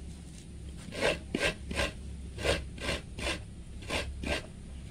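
A halved coconut scraped by hand against a coconut grater, shredding out its white meat: about eight scraping strokes starting about a second in, in runs of two or three with short pauses.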